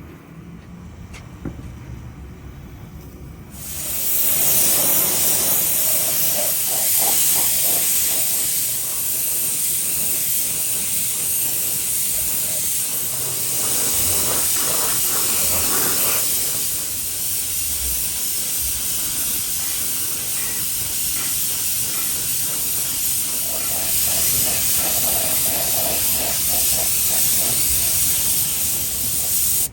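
A steady hiss of a spray or air jet that starts abruptly about four seconds in and runs on loudly.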